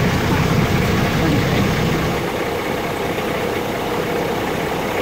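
Boat engine running steadily under a wash of water and wind noise; its low drone gets weaker about two seconds in.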